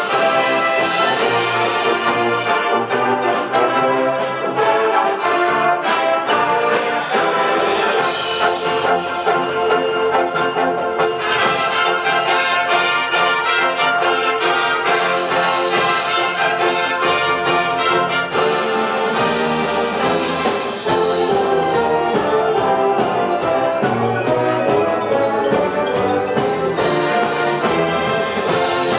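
A large high-school wind band playing a loud, brass-led piece, trumpets and trombones to the fore, with steady percussion strokes under it.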